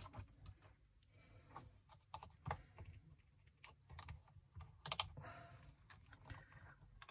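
Faint, scattered clicks and rustles of hook-up wires being pushed into the numbered connection terminals of a Science Mad Circuit Lab electronics kit, at irregular moments.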